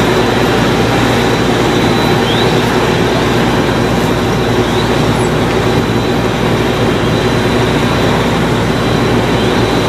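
Loud, steady engine noise with a constant hum running through it, unchanging throughout.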